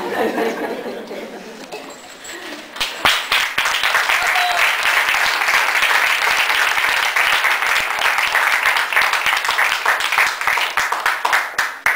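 Audience applauding. Dense clapping begins about three seconds in and holds steady, after a couple of seconds of voices.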